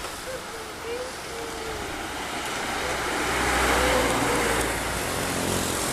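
Road traffic: a vehicle passes close by, its engine and tyre noise swelling to loudest about four seconds in, with a few short wavering tones heard over it.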